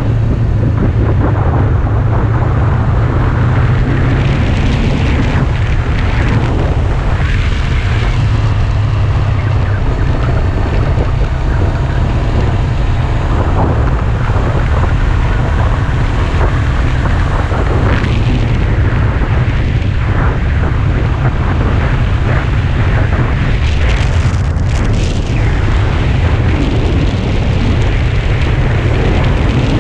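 Wind buffeting the microphone of a sport motorcycle riding at road speed: a loud, steady rumble, with the bike's engine running beneath it.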